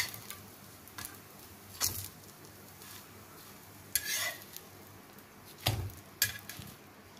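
A flat metal spatula scraping and knocking on a dosa griddle several times as stuffed murtabak parcels are turned and pressed, over a faint sizzle of them toasting.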